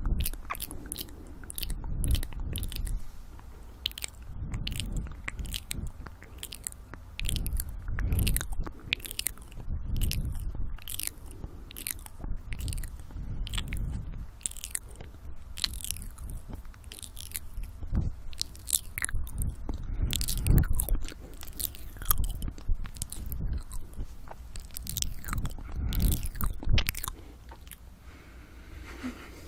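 ASMR mouth sounds very close to the microphone: dense wet clicks and smacks of lips and tongue, with heavy breathing swelling every couple of seconds. It dies down about two seconds before the end.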